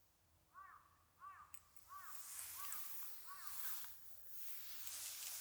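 A bird calling five times in a row: short, clear notes that rise and fall, about two-thirds of a second apart, over a faint rustling hiss.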